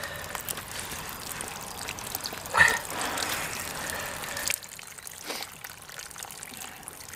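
Water trickling and splashing as a landed mirror carp is handled on a wet unhooking mat, with a sharp slap about two and a half seconds in. The trickling stops about halfway through.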